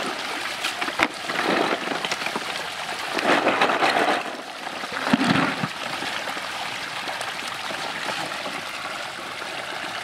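Shallow stream water running and splashing around a plastic basin and wading legs, with louder splashy swells in the first half and a steadier wash of running water after. A single sharp knock about a second in.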